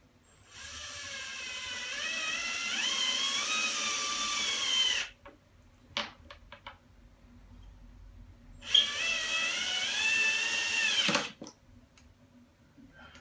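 Ryobi cordless drill-driver in screwdriver mode driving screws into the wall. Two runs of motor whine: the first about four seconds long, its pitch climbing and wavering; the second about two and a half seconds. Each stops abruptly, with a few light clicks in between.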